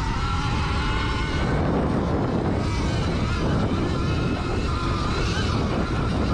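Sur-Ron electric dirt bike running along a trail: the motor's whine drifts up and down a little with speed, over a loud low rumble.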